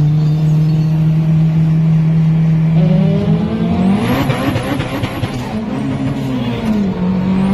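Car engine heard from inside a car during a highway roll race: it holds a steady note, then revs climb about three seconds in under hard acceleration amid a rush of road and wind noise, before dropping back near the end.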